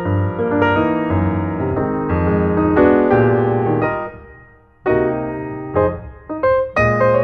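Piano music: a melody of struck notes, each ringing and fading, with a brief pause about four and a half seconds in.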